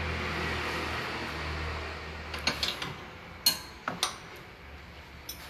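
Metal parts and hand tools clinking in short, separate clicks as a coilover and front suspension link are fitted by hand in the wheel arch. A steady hum fades in the first couple of seconds.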